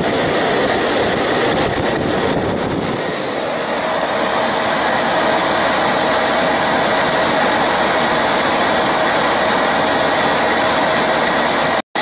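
Outdoor air-conditioning condensing unit running: a steady fan-and-compressor noise with a faint steady whine through it.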